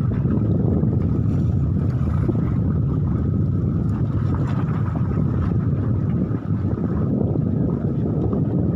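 Strong wind buffeting the microphone: a steady low rumble that barely changes, with a faint steady high whine above it.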